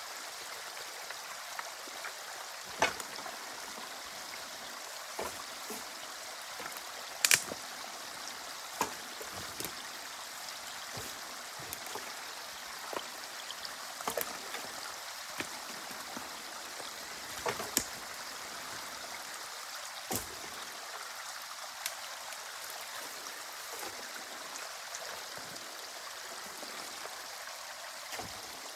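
Water running and trickling through a drainage canal at a beaver dam that is being broken through, with short sharp sounds here and there, the loudest about seven seconds in.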